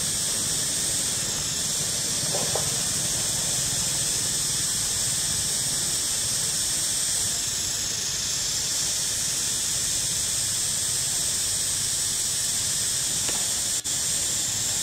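Steady high-pitched drone of insects buzzing in the trees, with a brief squeak about two and a half seconds in.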